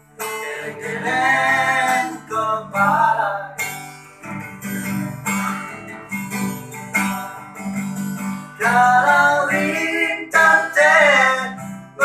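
Acoustic guitar strummed in chords while a male voice sings a melody over it in phrases.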